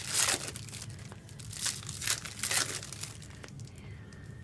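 Foil trading-card pack wrappers crinkling and tearing as packs are ripped open. The loudest rustle comes right at the start, with a few shorter ones around the middle and quieter handling near the end.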